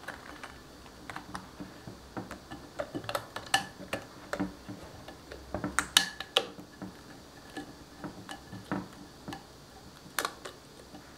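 Silicone stretch lid being pulled over a glass mixing bowl: irregular light clicks and taps of the lid and fingers against the glass, the loudest about six seconds in and another near ten seconds.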